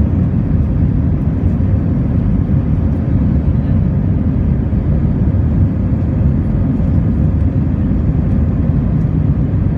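Steady low jet-engine and airflow noise heard inside a jet airliner's cabin as it climbs after takeoff.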